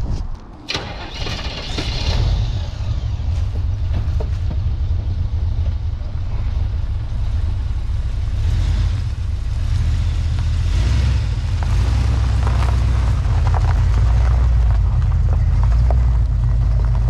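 Chevrolet small-block 350 V8 with headers, starting up about a second in and then idling steadily with a deep, loud rumble.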